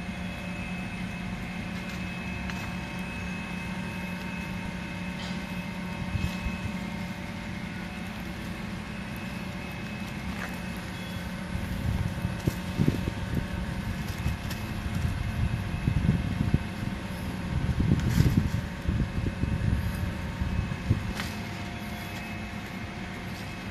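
A car's engine runs with a steady hum at low speed. Through the second half, a louder, uneven low rumble comes and goes.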